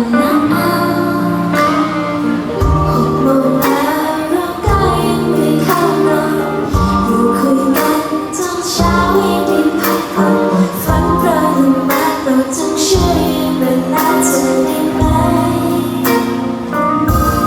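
Thai pop song by a girl group: female voices singing over a steady beat and bass line.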